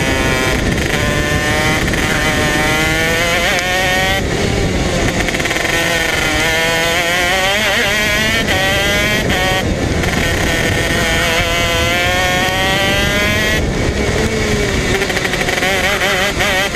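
Modena Engines 125cc KZ shifter kart engine, a single-cylinder two-stroke, running hard on track, its revs climbing in long rising sweeps. The pitch breaks off briefly about four, ten and fourteen seconds in before climbing again.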